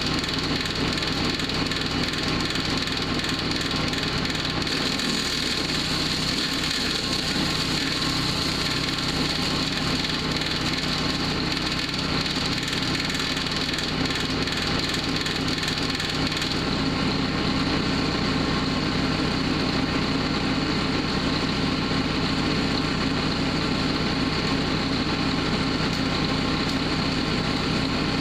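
Powerhorse gas-engine wood chipper-shredder running steadily while wood is chipped, with a crackling, splintering noise over the engine. About two-thirds of the way through the chipping stops and the engine keeps running.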